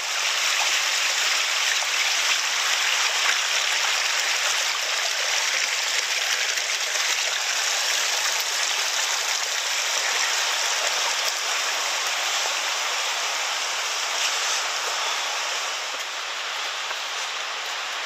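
Steady rush of a stream's running water, easing slightly in the last two seconds.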